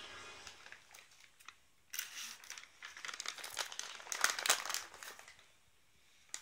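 A cat's fur and claws rubbing and scraping against the inside of a glass vase as it shifts and turns round in it: a run of crinkly scratches and squeaks, densest and loudest about two to five seconds in.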